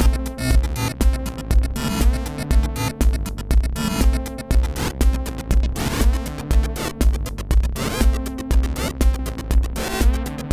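Live electronic music played on modular synthesizers: a steady synth kick drum about twice a second under a stepping synth bass line, with clicking percussion and tape echo.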